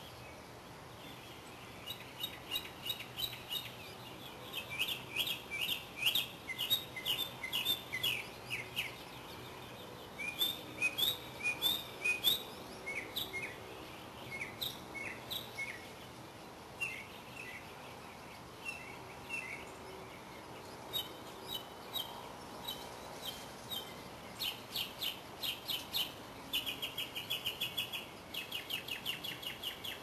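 Small songbirds chirping in quick runs of short, sharp notes that come in bouts of a few seconds. Near the end the notes run together into a fast, even trill.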